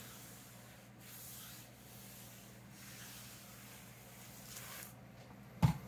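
Faint rubbing of a clothes iron's soleplate sliding over a sheet of paper. A single sharp knock comes near the end.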